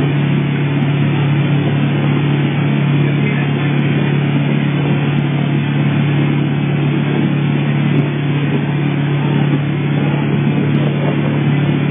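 Wakeboard tow boat's engine running at a steady towing speed, heard from on board: a constant low drone with an even rushing hiss over it.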